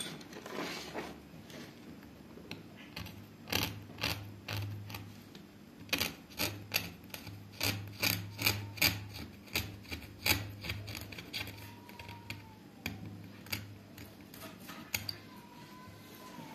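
A small hand blade scraping along the cut edges of letters in a sign board, shaving off the rough edge in short strokes, about two a second, that thin out after the middle.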